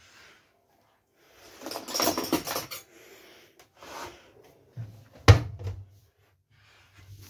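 Rustling and clattering household handling noises, with one sharp knock about five seconds in.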